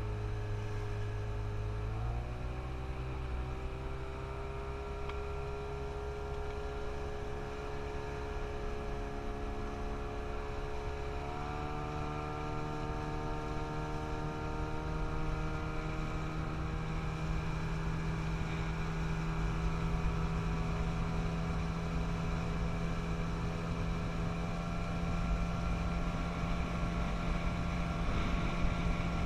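Outboard motor driving an inflatable boat, opened up for a power test: its pitch steps up twice, about two seconds in and again about eleven seconds in, then it runs steadily at the higher speed.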